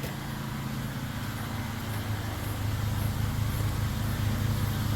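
Pressure washer's gas engine running steadily with a low hum, growing a little louder about halfway through.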